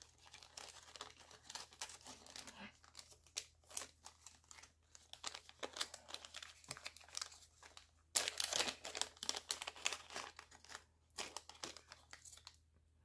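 Thin clear plastic zip-lock bags holding small metal filigree pieces, crinkling and rustling in irregular crackles as they are handled. It gets louder and busier for a couple of seconds about eight seconds in.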